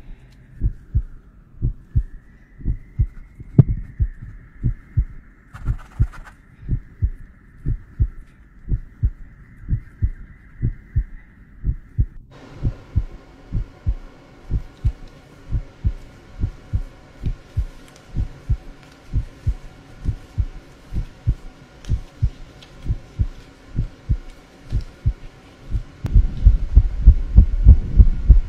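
Heartbeat sound effect: a steady train of low, evenly spaced thuds over a thin high ringing tone. About twelve seconds in, the tone gives way to a layered drone, and near the end the heartbeat grows much louder.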